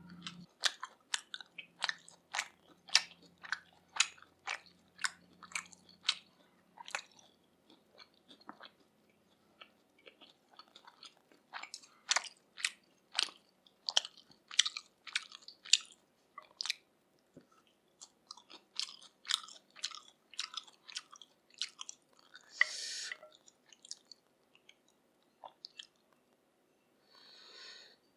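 A person chewing grilled pork neck in Korean spicy sauce close to the microphone: wet, clicky chews in runs of about two to three a second, with short pauses. Two brief hissy sounds come in the last few seconds.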